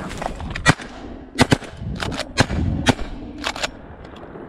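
A rapid volley of shotgun blasts from two or more guns at flying ducks: about eight sharp shots in quick succession over roughly three seconds, some coming in close pairs.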